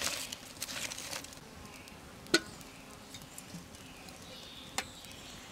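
Wood fire crackling in an earth-dug fireplace as a stick stirs the burning wood, with a flurry of small crackles in the first second, a sharp loud crack about two seconds in and another near the end.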